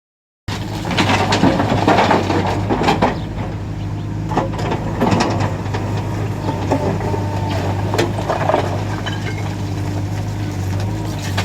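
A diesel backhoe loader's engine running steadily under load while stone is loaded, with repeated knocks and rattles of rocks striking the bucket and trolley, heaviest in the first few seconds.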